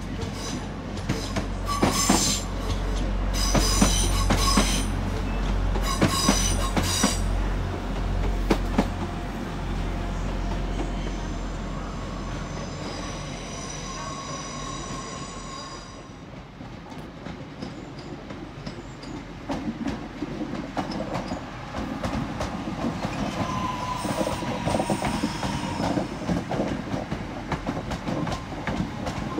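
Diesel passenger trains moving through station pointwork. A deep engine drone for the first several seconds, high-pitched wheel squeal over the middle stretch, then rapid wheel clatter over rail joints near the end.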